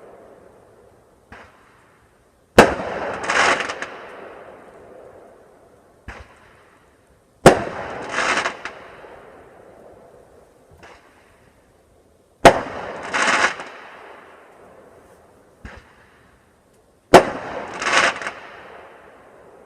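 Fireworks going off in a steady cycle, four times. Each time a sharp bang is followed about a second later by a louder burst that fades out over a couple of seconds, with a faint pop between cycles.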